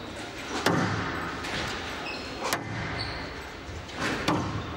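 Squash rally: sharp cracks of rackets striking the ball and the ball smacking the walls, four hits in all, echoing in a large hall.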